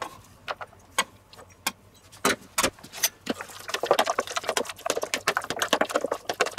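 A knife knocking and scraping on a wooden cutting board as chopped onion is pushed into a plastic tub, a few sharp knocks about half a second apart. About three and a half seconds in, thick wet marinade is stirred in the plastic tub, a dense run of small clicks and squelches.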